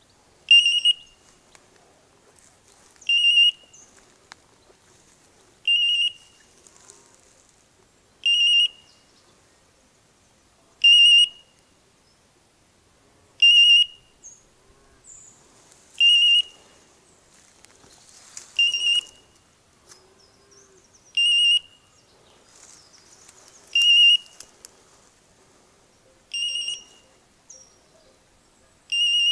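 A hunting dog's beeper collar sounding a short, warbling electronic beep about every two and a half seconds, twelve times in all. The beep is the locating signal that lets the hunter follow the dog in cover. Faint rustling of dry undergrowth can be heard between beeps.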